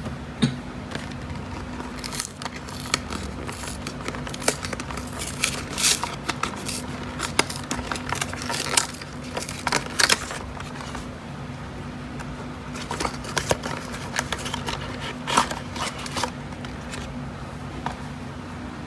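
A Yu-Gi-Oh structure deck's cardboard box and packaging being opened and handled: scattered clicks, scrapes and crinkles that come and go, busiest in the first half, over a steady low hum.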